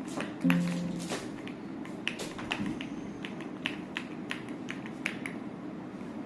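Keys being pressed one at a time on an Ajazz AK820 Pro gasket-mounted mechanical keyboard: about a dozen sharp clacks, unevenly spaced.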